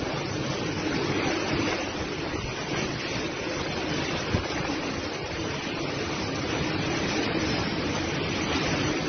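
Typhoon wind and heavy driving rain making a steady rushing noise, with a single brief knock a little past four seconds in.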